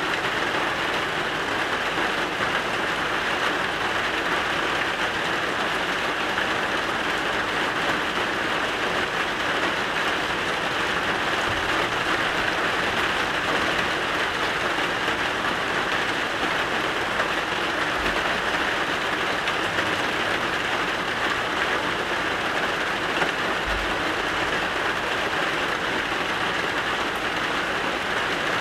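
Steady rain falling, a constant even hiss that neither builds nor fades.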